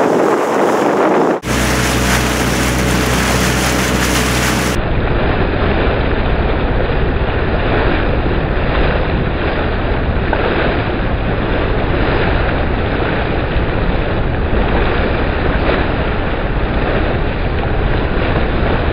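Wind buffeting the microphone over the steady hum of a small boat's motor and water noise. The sound changes abruptly about a second and a half in and again near five seconds.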